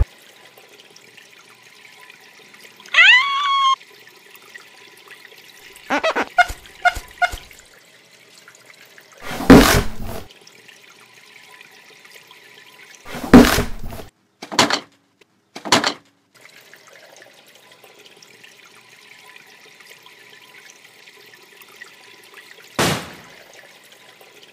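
Homemade foley for a rainy dinosaur scene: a steady hiss of running water like rain, a short rising squeal, a few quick clicks, then several loud heavy thuds and sharp strikes spaced a few seconds apart.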